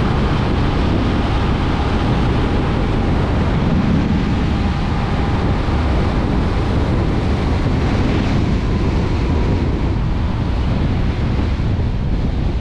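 Steady, heavy wind buffeting on the camera microphone of an electric motorcycle riding at speed. A faint thin whine sounds for the first few seconds.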